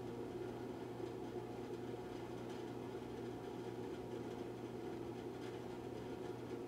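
Steady low hum and hiss of room tone, unchanging throughout, with no distinct sound standing out.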